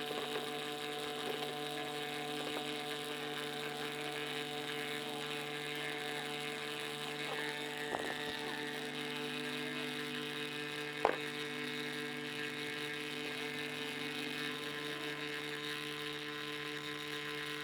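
Steady machine hum made of several held tones, with a faint click about eight seconds in and a sharper click about eleven seconds in.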